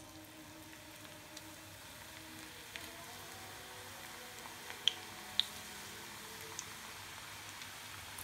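Onion pakoda batter sizzling in hot oil as it is deep-fried, the frying growing steadily louder, with a few sharp pops, the two loudest about five seconds in.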